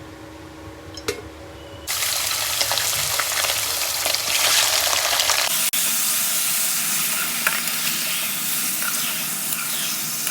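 Food sizzling loudly in hot oil in a cooking pan, starting suddenly about two seconds in after a faint click, with a brief drop-out about halfway through.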